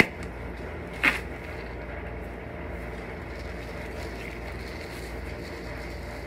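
Shop vacuum running steadily with its hose clogged and sucking weakly, with one short clatter about a second in.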